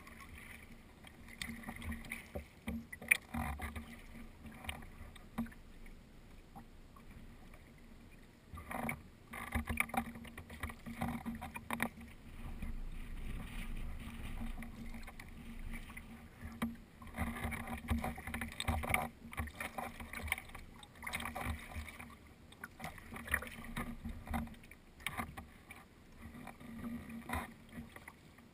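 Water splashing and lapping against a sea kayak's hull as it is paddled through light chop, in irregular rising and falling splashes, with one sharp knock about three seconds in.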